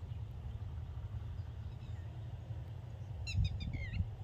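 A bird calls in a quick series of short, high chirps, some sliding down in pitch, starting a little over three seconds in. A steady low rumble runs underneath.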